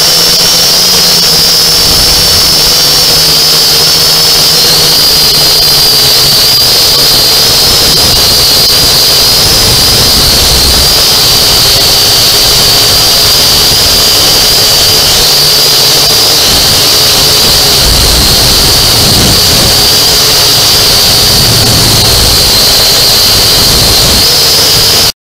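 Quadcopter drone's electric motors and propellers, heard close on the drone's own camera: a loud, steady high-pitched whine whose pitch wavers slightly as it flies.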